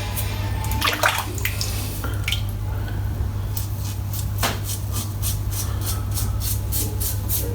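Water splashing and dripping during a wet head shave, over a steady low hum.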